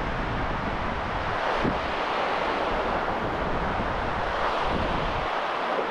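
Steady wind buffeting the microphone over shallow sea water lapping on a sand beach.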